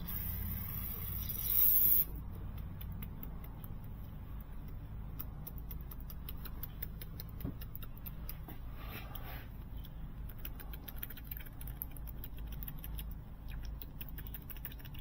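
Aerosol can of carburetor cleaner spraying a loud hiss for about two seconds, cleaning out a gummed-up, stuck mower fuel solenoid. After it come faint scattered clicks of small parts being worked.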